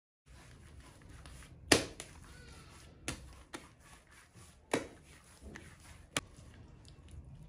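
Ball of pita bread dough being kneaded by hand and slapped down onto a silicone pastry mat on the counter: five sharp slaps, the loudest about two seconds in.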